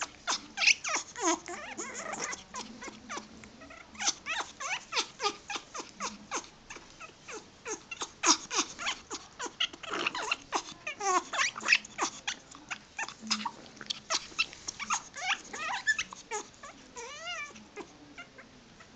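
A pet animal making a long run of short, high calls in quick succession, with a wavering trill near the end: unusual vocalising that may be mating behaviour or a sign of contentment.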